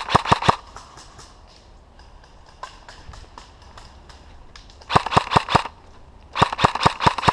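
Airsoft gun firing rapid bursts of sharp pops, about a dozen shots a second: one short burst at the start and two more about five and six and a half seconds in, with fainter single shots in between.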